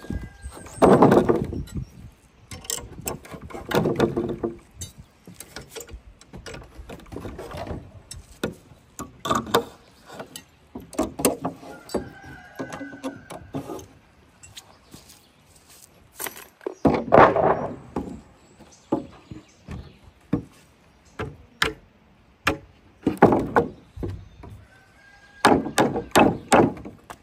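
Hand work on a building job: irregular knocks and clatter of wood and tools, with a few longer, louder scraping stretches about a second in, around the middle, and near the end.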